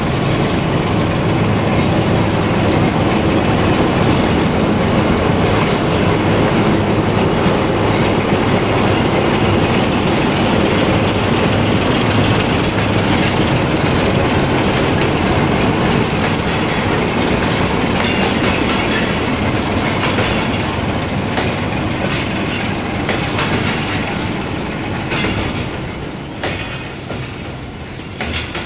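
A 060-DA (LDE2100) diesel-electric freight locomotive with a Sulzer engine runs past, followed by a long train of cement hopper wagons rolling by with a steady rumble and a clickety-clack over the rail joints. The engine's hum fades out early, and the wheel clacks grow sharper toward the end.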